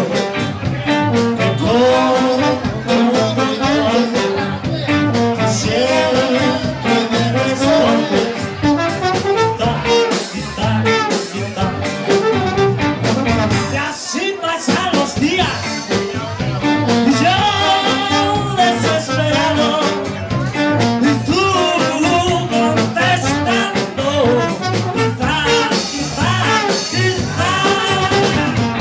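Live band playing an upbeat 1960s-style number: trombone and electric guitars over bass and a steady drum beat, with no break.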